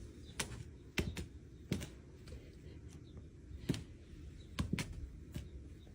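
A string of about ten light clicks and taps at uneven intervals, over a low steady background rumble.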